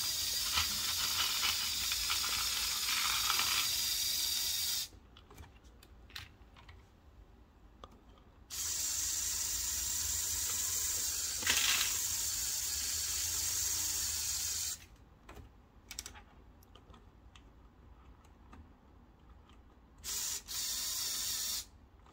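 Lego Power Functions electric motors driving the excavator's linear actuators, whirring in stop-start runs: about five seconds at first, about six seconds from the middle, and two brief bursts near the end. Light plastic clicks fall in the pauses between runs.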